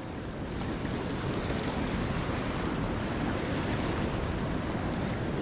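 Steady rush of fast, shallow river water pouring over rapids.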